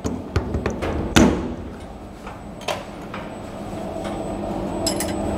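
Metal knocks and clinks as a milling-machine vise is tightened down to the table, the loudest knock about a second in and another near the middle. A steady machine hum grows louder in the second half.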